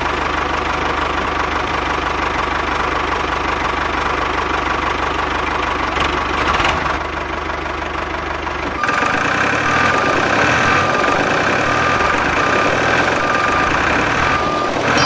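Diesel tractor engine running with a steady knocking chug. About nine seconds in, the deep rumble gives way to a higher-pitched machine sound with a short beep repeating roughly once a second.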